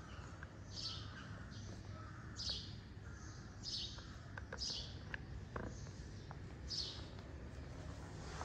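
Birds chirping, short high calls repeating every second or so, over a low steady background hum.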